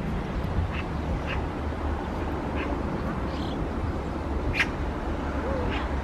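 Oriental magpie giving short harsh single calls, about half a dozen spaced irregularly, the loudest a little past the middle, over a steady low hum.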